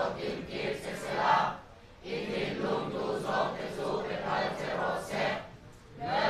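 Many voices of a congregation speaking or singing together in unison, in phrases broken by two short pauses.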